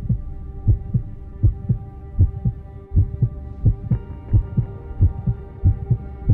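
Intro soundtrack of a heartbeat-like double thump, about 80 beats a minute, over a bed of steady held tones; a higher layer of tones comes in about four seconds in.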